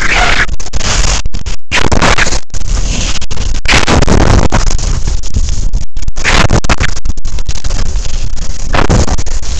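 Skis scraping and hissing over packed snow on a fast descent, mixed with wind buffeting the camera microphone. The loud noise swells every couple of seconds and cuts out briefly twice.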